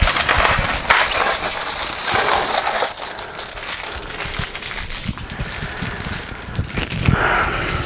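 Packaging rustling and crinkling as it is handled and dug through, with scattered small knocks; loudest in the first three seconds and again near the end.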